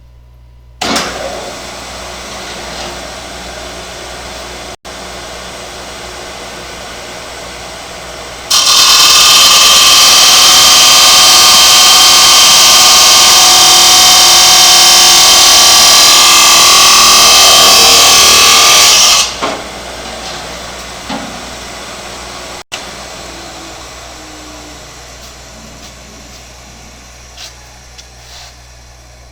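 Abrasive cutoff saw: the motor starts about a second in and spins freely. The wheel then grinds through a piece of metal stock for about ten seconds, very loud and high-pitched. After the cut the motor winds down slowly.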